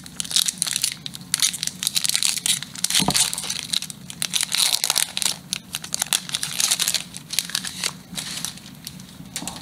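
Foil wrapper of a Pokémon trading card booster pack crinkling and tearing as it is worked open by hand. The crackling comes in a dense, irregular run that thins out near the end as the cards come out.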